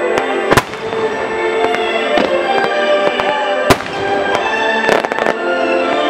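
Fireworks shells bursting during a music starmine, with sharp reports about half a second in and near the middle, and a quick run of smaller pops near the end, over music playing steadily.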